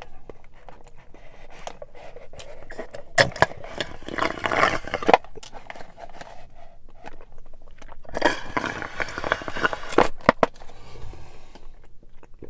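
The last of a boba milk tea slurped through a wide plastic straw from a nearly empty cup: two long, noisy slurps of about two seconds each, a few seconds apart. Sharp clicks and scrapes of the straw against the plastic cup fall around them.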